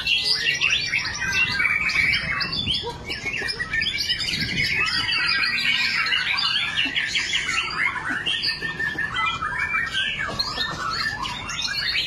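White-rumped shama (murai batu) singing rapid, varied phrases of chirps and whistles, with other caged songbirds singing over it in a dense, unbroken chorus.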